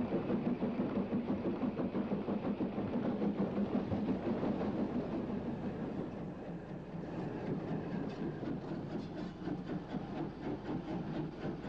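Steam locomotive running with a train: rapid, regular exhaust beats and the clatter of wheels over the rails, a little quieter from about halfway.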